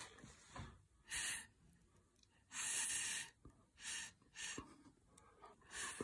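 Short puffs of breath blown through a drinking straw onto wet acrylic paint, five in all, the second one longer than the others.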